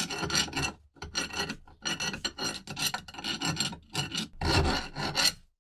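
A steel pin scraping and grinding in the bore of a saw tooth setter's cast body as it is worked into place, a rough metal-on-metal rasp that comes in about six clusters of short strokes and stops just before the end.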